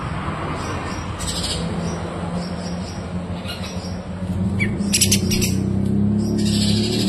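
Kapas tembak songbird calling in short, bright chirping phrases, loudest about five seconds in and again near the end. A low steady rumble runs underneath and swells in the second half.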